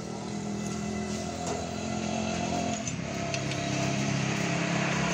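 Motorcycle engine running steadily, with a few light metallic ticks around the middle.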